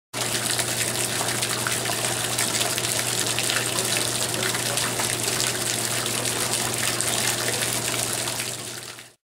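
Fountain water spraying from a stainless steel linear fan jet nozzle and splashing back into its basin, a steady rushing with a low hum underneath. It fades out shortly before the end.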